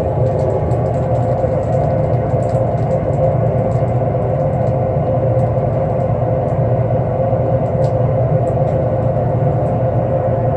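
Metal-melting furnace running with a steady loud roar and a held humming tone.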